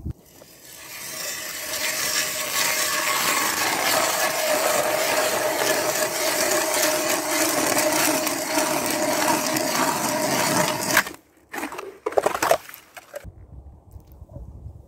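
Hand ice auger boring through lake ice: the blades grind steadily through the ice for about ten seconds, building up over the first two seconds, then stop abruptly. A few sharp knocks follow.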